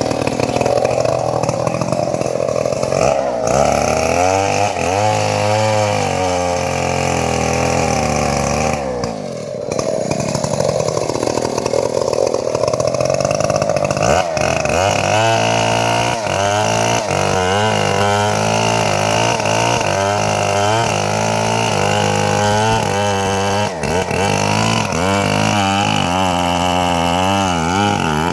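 Two-stroke chainsaw running hard and cutting into wood. Its engine pitch keeps sagging under load and recovering, with one deep bog-down about ten seconds in before it revs back up.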